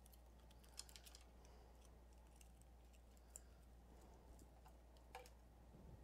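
Near silence: a steady low room hum with a few faint, scattered clicks, the clearest about a second in, three and a half seconds in and five seconds in.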